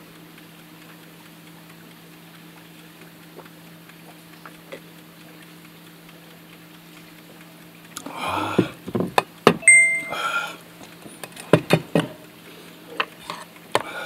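A steady low hum, then from about eight seconds in a run of clatter, sharp clicks and knocks as things are handled, with a short high beep among them.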